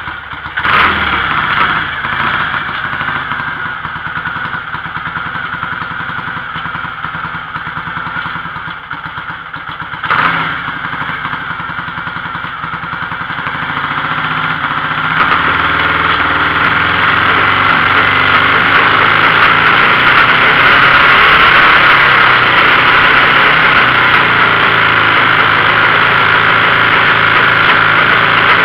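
Rebuilt twin-carburettor BSA motorcycle engine running unevenly, freshly started after more than ten years standing and still needing carburettor tuning. It gives two sudden loud surges, about a second in and again around ten seconds, then holds at a higher, louder speed through the second half.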